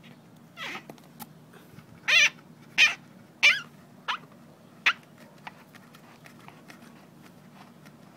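Plastic 2-litre pop bottle squeaking against a rubber chair-leg stopper as the bottle's mouth is pushed and twisted down onto the launcher's valve. There are six short squeaks with wavering pitch; the loudest three come about two to four seconds in.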